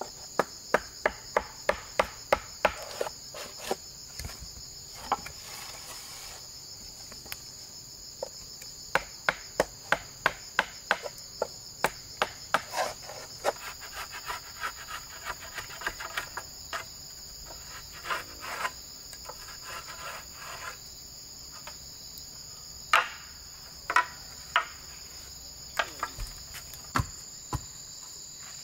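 Insects shrilling steadily in a high band, under runs of sharp knocks from hand-tool work, about three or four a second, that stop and start again, with scattered single knocks in the second half.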